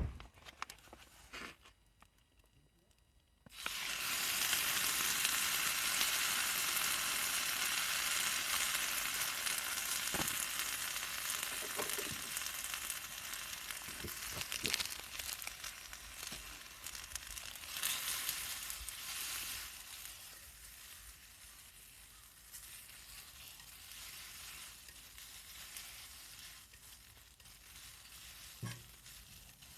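Food sizzling on a hot, thick homemade iron griddle plate. The sizzle starts suddenly about three and a half seconds in and slowly dies down, with a few light knocks along the way.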